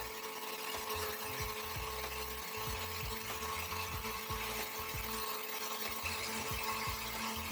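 Countertop blender running steadily with a constant motor hum, blending boiled beetroot and carrot in their cooking water.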